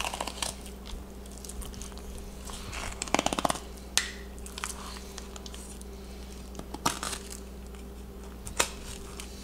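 Fillet knife cutting along a peacock bass's back on a plastic cutting board, with scattered scrapes and crunchy clicks as the blade works over the bones. There is a quick run of ticks about three seconds in.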